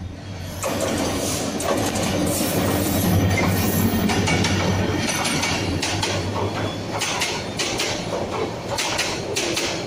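Bangladesh Railway intercity train passing close at speed: the diesel locomotive's engine drone comes up loud under a second in, then the passenger coaches roll by with their wheels clacking over the rail joints in the second half.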